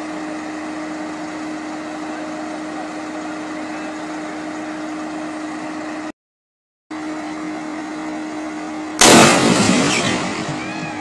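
Overhead power line shorting on a utility pole: a steady hum, briefly cut off about six seconds in, then a sudden loud bang about nine seconds in that dies away over a second or two as the short circuit blows.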